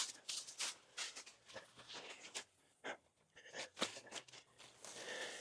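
Camera handling noise: faint, irregular rustles and small clicks as the camera is picked up and moved.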